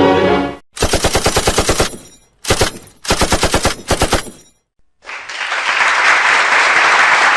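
Automatic gunfire sound effect: three bursts of rapid shots, about ten a second, the middle burst short. About five seconds in, a steady rushing noise takes over.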